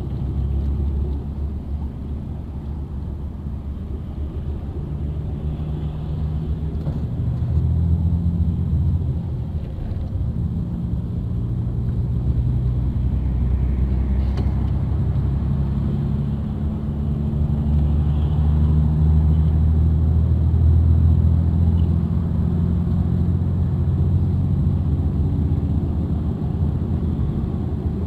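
Vehicle engine and road rumble heard from inside the cabin while driving. The low engine note drifts up and down slightly as the revs change, swelling louder about a third of the way in and again past the middle.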